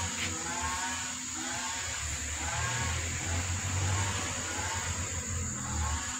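Mother cat purring with a low steady rumble while her kittens nurse against her, with short high chirps repeating about twice a second in the background.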